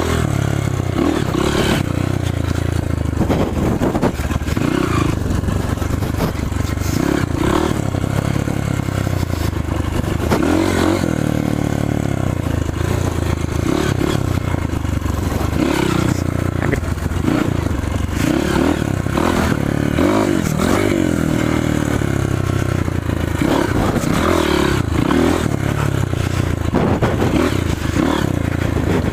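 Trail motorcycle engine running while riding off-road, its revs rising and falling again and again with the throttle, with rattling and scraping noise over it.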